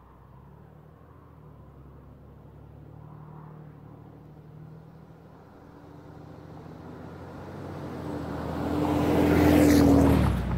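Ram pickup's 6.7 L Cummins turbo-diesel inline-six with a fully deleted exhaust, driving up from behind and passing close by. A steady low drone grows louder over several seconds, peaks as the truck goes past near the end, then starts to fall away.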